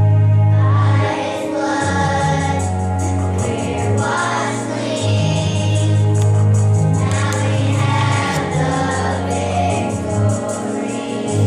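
Children's choir singing together over an accompaniment with long steady bass notes and a regular ticking percussion beat.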